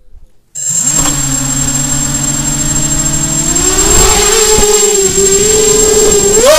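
ZMR250 quadcopter's four motors and propellers starting up about half a second in and holding a steady hum, then rising in pitch a little after three seconds as the quad throttles up and lifts off, and again near the end. A thin, steady high whine runs along with it, and the motor noise is loud because the camera rides on the quad.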